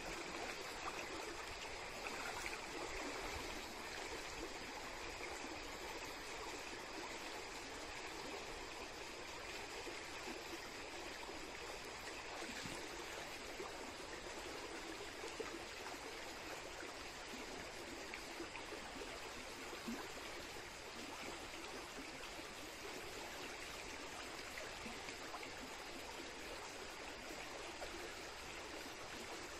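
Shallow brook running over its bed: a steady babble of flowing water.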